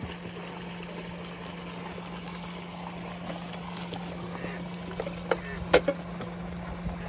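Wooden sticks of a makeshift ladder knocking and clattering as they are handled down in a dirt pit: a few sharp knocks about five to six seconds in, over a steady low hum.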